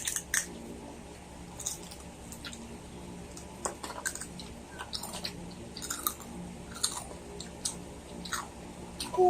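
Chewing and biting into crispy lechon kawali (deep-fried pork belly), with irregular sharp crunches and mouth clicks. A short pitched call sounds right at the end.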